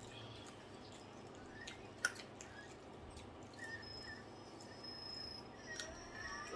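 Faint eating sounds from people eating with their fingers: soft mouth clicks and lip smacks, with one sharper click about two seconds in. A few short high chirps and a thin high tone are also heard.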